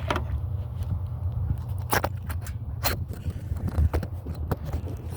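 Steady low rumble of a car on the move, heard from inside the cabin, with several sharp clicks and knocks of handling scattered through it.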